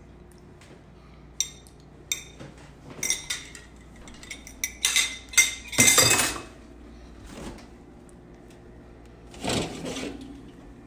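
Kitchen dishes and cutlery being handled: a run of sharp clinks and clatters of crockery and metal utensils, thickest around the middle, with a short burst of noise near the end.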